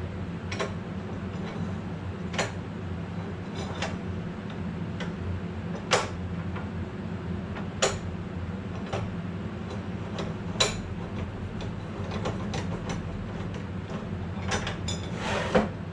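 Scattered sharp clicks and light knocks of a metal-cutting chop saw and its parts being handled during unboxing, over a steady low hum.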